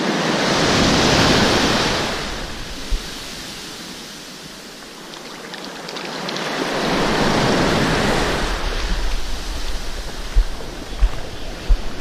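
Small surf waves breaking and washing up the sand, in two surges about six seconds apart, with wind on the microphone. Near the end comes a run of short low thumps about every half second.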